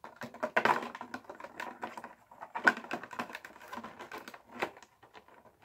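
Irregular light clicks and rustles of a cardboard collectible-figure box and its figure being handled, with one sharper click a little under three seconds in.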